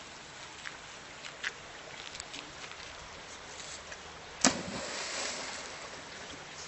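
A dog leaping into a river: one loud splash about two-thirds of the way through, followed by a second or so of spraying, settling water. A steady low water hiss lies underneath.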